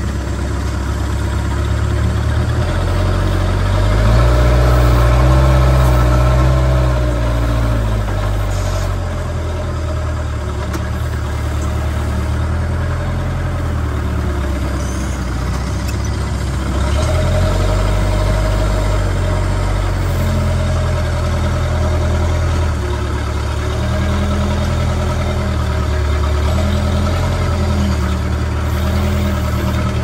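JCB backhoe loader's diesel engine running steadily, revving up about four seconds in and again about halfway through, then settling back.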